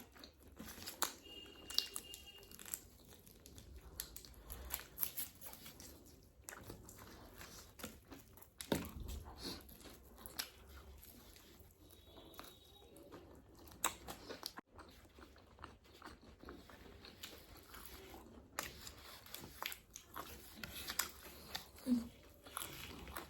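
Biting into and chewing KFC fried chicken, with irregular small crunches and mouth clicks scattered throughout.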